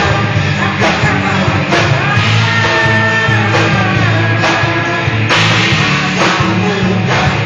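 A rock band playing a song: drum kit and amplified instruments with a singing voice, loud and continuous.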